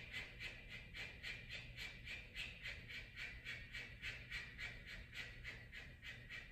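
Kapalbhati breathing: a woman's short, forceful exhales through the mouth in a steady rhythm of about three a second.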